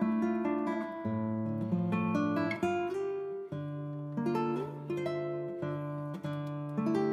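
Acoustic guitar music: plucked notes over changing bass notes, a steady picked melody.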